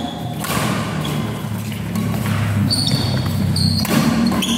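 Badminton rally: rackets striking the shuttlecock, with a sharp hit about half a second in and another near the end, and short high squeaks from shoes on the court in between.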